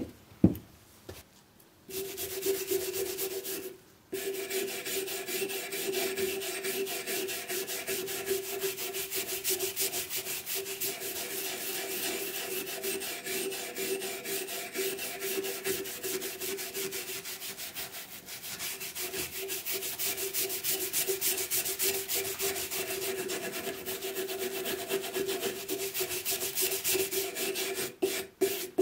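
A powered sanding tool runs with a steady hum while its abrasive rasps against the work. It starts about two seconds in, breaks off for a moment shortly after, and stops near the end.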